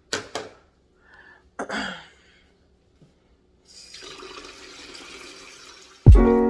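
Kitchen sink tap turned on, water running steadily into the sink, after a few clinks of dishes being handled. Music starts abruptly near the end.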